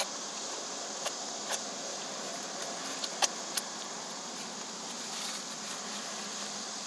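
A person chewing a mouthful of cheeseburger, with a few short faint mouth clicks over a steady background hiss.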